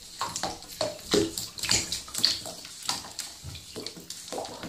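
Water sloshing and splashing in a filled bathtub, stirred by a hand moving under the surface and a tegu lizard swimming beside it: an irregular run of small splashes, several a second.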